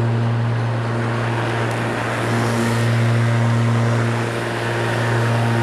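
Spear & Jackson S4037CR 40V cordless rotary lawnmower running as it is pushed across the lawn cutting grass: the electric motor and spinning blade give a steady low hum over a rushing noise.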